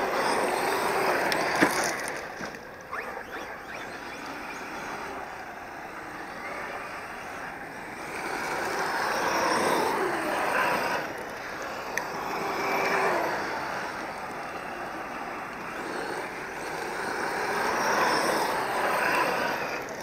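1/5-scale Losi DBXL-E electric RC buggies racing on a dirt track. The motor whine and tyre noise on the dirt swell and fade each time the cars pass, with the whine rising and falling in pitch as they speed up and slow. There are a couple of sharp ticks, one near the start and one about halfway through.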